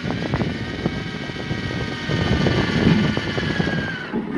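Electric drill boring a hole through the metal lid of a tool box with a twist bit: a steady motor whine over grinding chatter from the bit cutting the metal. The whine sags in pitch and stops near the end.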